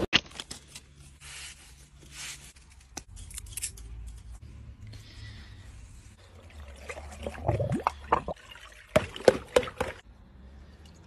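Water trickling from a hose into a balloon, with small handling clicks and rubbery rubbing, then a few sharp taps on the water-filled balloon about three quarters of the way in.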